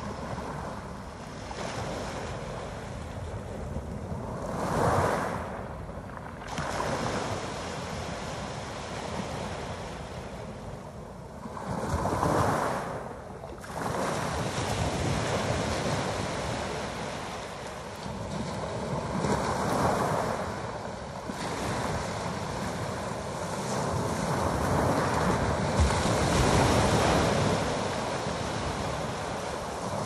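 Small sea waves breaking and washing up a pebble beach, swelling four times, about every seven seconds.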